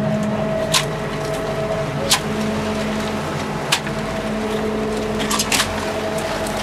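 A crab hoop net being emptied into a wooden deck bin: a handful of sharp knocks and clatters as Dungeness crabs and the net's rim hit the wood, over a steady machinery hum.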